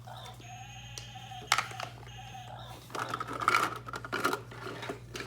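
Hard toy pieces clicking and clattering as they are handled, a sharp click about a second and a half in and a stretch of clattering and rustling in the middle. A drawn-out bleat-like vocal sound comes early.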